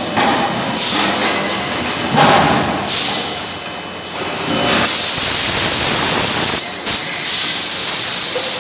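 Loud hissing noise, like air or steam blowing, in surges of about a second in the first half and then steady for the last few seconds.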